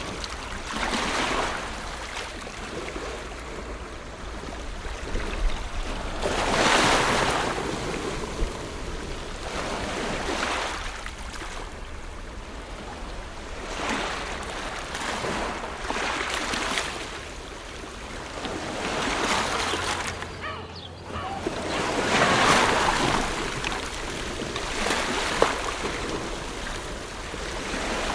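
Ocean waves breaking and washing ashore, the surf swelling and fading every few seconds, over a steady low rumble of wind.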